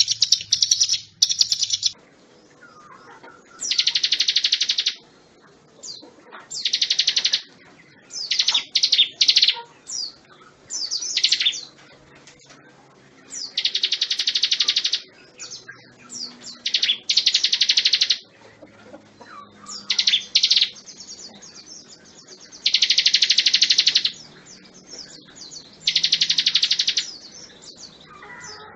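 Ciblek gunung (hill prinia) singing: loud, rapid buzzing trills about a second long, repeated every two to three seconds, with softer chirps between them.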